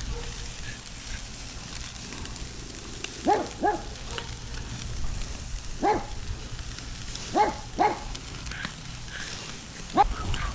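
A dog barking, about six short barks, some in quick pairs, over the faint steady sizzle of burgers on a charcoal grill.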